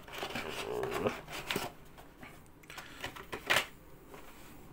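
Cardboard watch box being opened and handled: card sliding and rubbing with short scraping strokes, then a sharp tap about three and a half seconds in as the watch on its cushion is lifted out.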